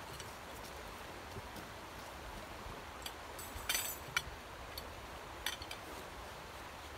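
A few short clicks and clacks of tent poles being handled and knocked together, over a steady hiss. The loudest is a small cluster of clacks about three and a half to four seconds in, with a single click near five and a half seconds.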